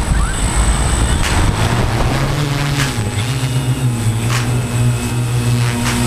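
Tarot T960 hexacopter's electric motors and propellers spinning up for lift-off, a low rumble giving way about a second and a half in to a steady, loud hum that wavers slightly in pitch as it climbs.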